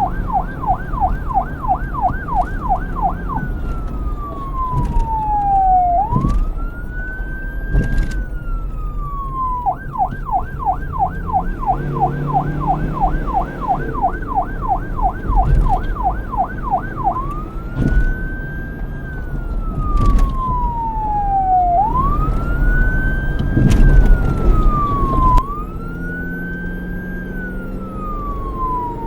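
Police car electronic siren cycling between a rapid yelp, rising and falling about six times a second, and a slow wail that rises quickly and sinks over two to three seconds; the yelp gives way to the wail after about three seconds, returns at about ten seconds, and then the wail runs through the rest. A low rumble runs underneath.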